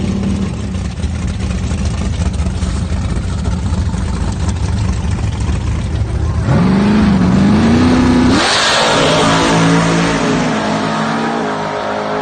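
Early Ford Mustang drag car's engine running at the starting line, revving up with a rising, wavering pitch about six and a half seconds in. It launches about eight and a half seconds in with a loud burst of noise, and the engine note then fades as the car pulls away down the strip.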